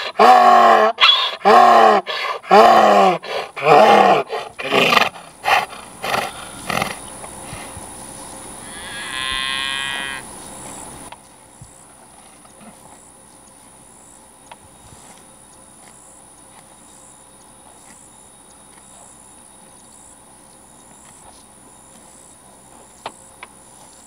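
Donkey braying: a run of loud, rhythmic hee-haw calls that weaken into gasping breaths and stop about six seconds in. It is a guard donkey's alarm bray at an intruder by its pasture. A brief higher-pitched call follows a few seconds later, then only a faint steady high tone.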